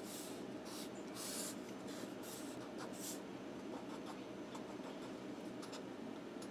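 Felt-tip marker drawing on a sheet of paper: a run of short, scratchy strokes as lines and small dashes are sketched.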